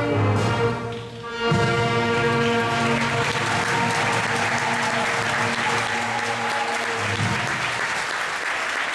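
A student band of flutes, horns, keyboard and drums plays the last notes of a blues tune and holds a final chord, while the audience breaks into applause. The chord stops about seven seconds in and the applause carries on.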